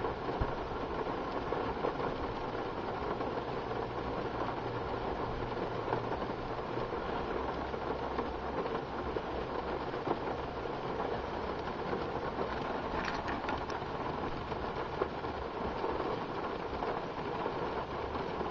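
Steady rain falling during a severe thunderstorm.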